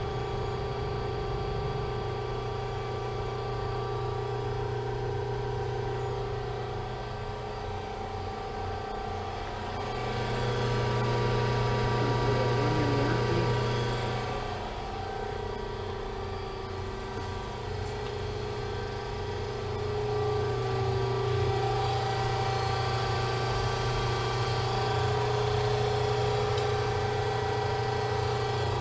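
Hoston 88-ton hydraulic press brake's oil pump running with a steady hum. The hum grows louder for a few seconds about ten seconds in, and again from about twenty seconds in.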